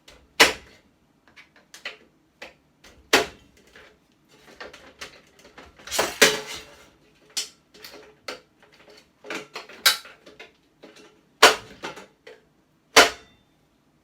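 Sharp clicks and knocks of metal parts as electrical contacts are worked loose and removed from a stainless steel scrap unit: about six loud clacks a second or more apart, with fainter rattling and scraping between.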